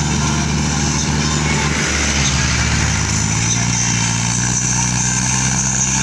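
Mahindra Arjun 555 tractor's diesel engine running steadily under load as it hauls a trailer heaped with sugarcane, its engine note shifting slightly about two to three seconds in. Other road traffic, a pickup and a mini truck, passes alongside.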